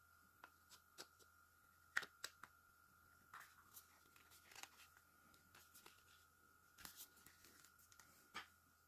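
Faint, scattered small clicks and short scrapes of a Kemei KM 2296 hair clipper's small plastic and metal parts being handled, the sharpest click about two seconds in, over a faint steady high tone.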